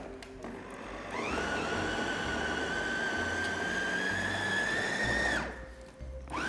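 Electric mini food chopper's motor spinning up about a second in to a steady high whine, then cutting off about five seconds in and starting again just before the end, as it purées boiled potatoes and leeks.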